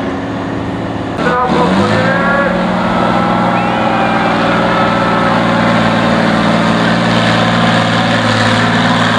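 Tatra 815 6x6 trial truck's diesel engine running under load at steady revs as the truck drives up a steep sand slope, coming in loud just over a second in.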